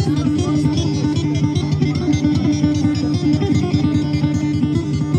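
Acoustic-electric guitar strummed in a fast, even rhythm over steady low notes.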